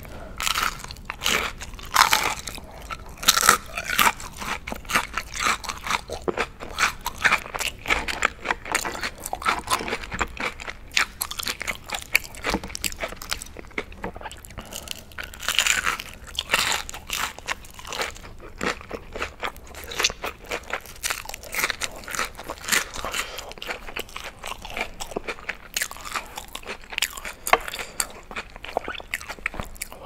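Close-miked biting and chewing of crispy battered onion rings: a dense, continuous run of crunches with chewing between them.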